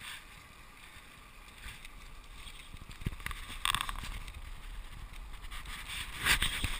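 Wind rushing over the microphone of a camera mounted on a moving road bicycle, a steady low rumble with two brief louder bursts, one about halfway through and one near the end.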